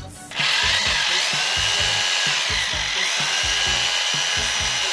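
Corded rotary hammer drill switched on about half a second in and running steadily in reverse, its freshly re-brushed motor whining with a brief dip in pitch near the middle.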